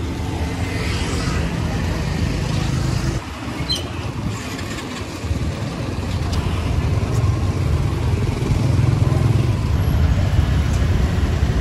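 Busy street traffic: car and motorbike engines running steadily, with voices faintly in the background.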